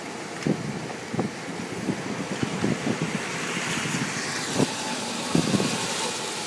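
Strong storm wind blowing in gusts, buffeting the microphone with many short low thumps over a steady rush. A broader rushing swell builds and fades around the middle.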